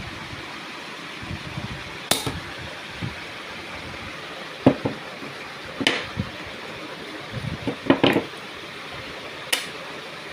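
About five sharp knocks and clicks as small metal and rubber-padded hand tools are picked up and set down on a tabletop, over a steady background hum.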